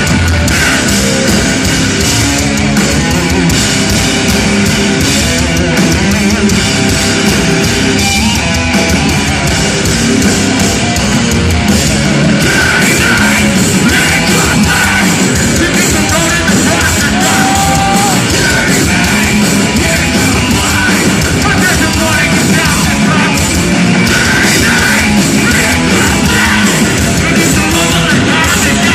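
Live hardcore punk and metal band playing at full volume: distorted guitars, bass and pounding drums, with shouted vocals over them.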